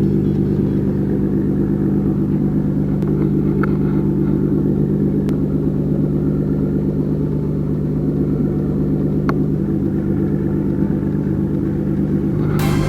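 An engine runs steadily with an even drone. A few faint ticks come through, and there is a short hiss near the end.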